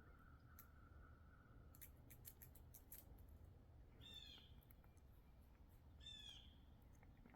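A squirrel gnawing and scraping the thick shell of a black walnut with its teeth: sharp scattered clicks, with a quick run of them in the second and third seconds. A bird calls twice, about four and six seconds in.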